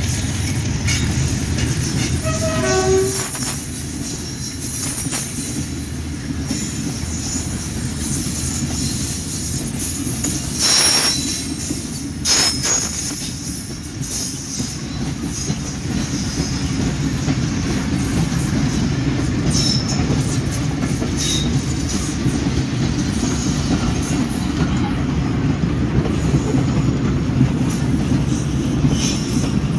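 A long freight train of open-top wagons rolls past close by: a steady rumble of steel wheels on the rails, with wheel clatter.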